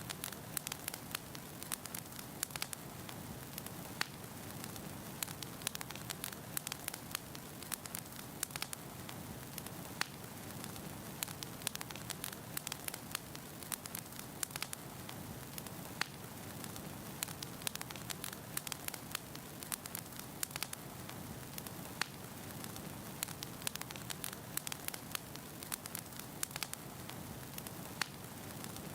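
Wood logs burning in a fireplace: a steady low rush of flame with frequent irregular sharp crackles and pops.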